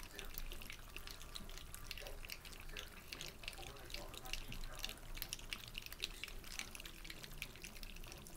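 A litter of puppies eating together from steel feeding bowls: a dense, irregular patter of many quick wet lapping, licking and smacking sounds.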